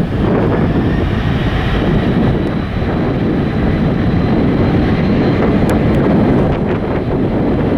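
Jet airliner engines, a steady rumble with a faint high whine above it, mixed with wind buffeting the microphone.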